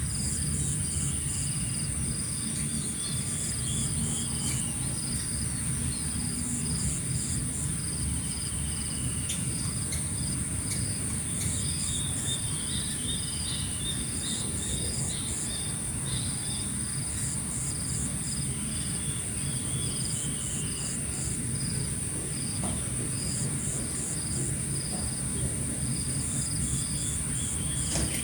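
Morning outdoor ambience of insects: a continuous high-pitched insect trill with crickets chirping in short repeated pulses. Now and then birds give short falling call series, over a low steady rumble.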